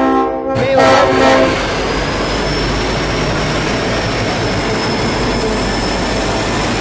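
A diesel locomotive's multi-tone horn sounds twice in the first second and a half: a blast cutting off about half a second in, then a shorter toot. Then comes the steady rumble of broad gauge diesel freight locomotives running past, with a faint high whine.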